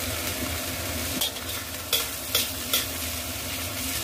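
A stir-fry of pork and pickled mustard root sizzling in a pan as it is stirred. The spatula clacks against the pan four times in the second half.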